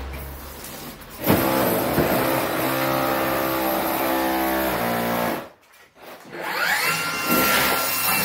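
Electric power tool motor running steadily, cut off suddenly after about four seconds. A couple of seconds later it spins back up with a rising whine and runs on at a steady high pitch.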